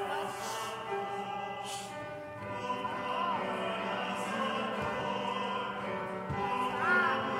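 A congregation singing a hymn together in slow, sustained notes, with instrumental accompaniment.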